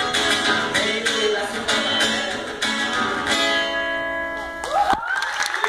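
Strummed guitar music with a steady rhythm that ends on a held chord and cuts off about five seconds in. Just before the cut-off, a crowd starts cheering and clapping.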